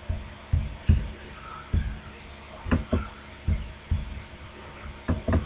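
Computer mouse clicking about a dozen times at irregular intervals, short sharp clicks with a dull low knock to them, over a faint steady electrical hum.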